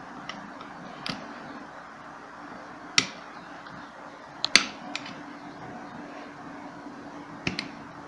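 Sharp clicks of a screwdriver tip prying at the retaining tabs that hold a pedestal fan motor's worn sleeve bushing, about five scattered clicks, the loudest a double click around the middle, over a faint steady hum.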